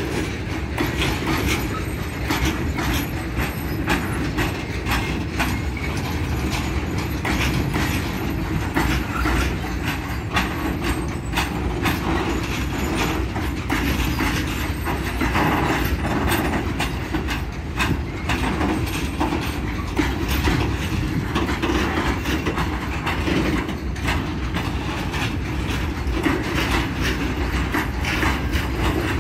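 Freight train of sliding-wall covered wagons rolling past: a steady rumble of steel wheels on rail with frequent irregular clicks and clacks.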